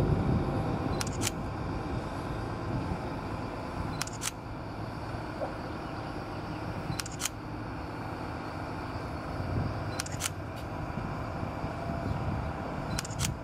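Camera shutter clicking in pairs, two quick clicks about a third of a second apart, repeating every three seconds like a timed time-lapse sequence, over a steady low rumble.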